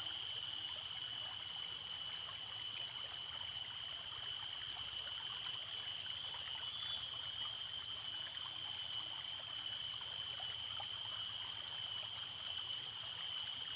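Stream water flowing and trickling, with a steady high-pitched whine of several tones sitting above it.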